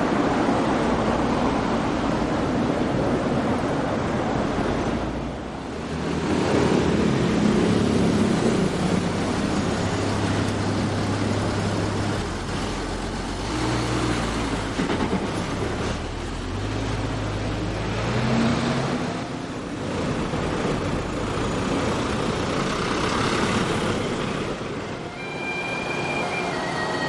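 City street traffic: large vehicle engines running and passing close, their pitch rising and falling several times over a steady rumble of road noise.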